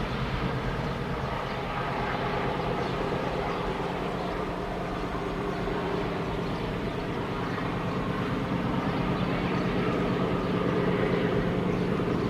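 Diesel freight locomotive engine running steadily with a low hum, growing a little louder about two-thirds of the way through.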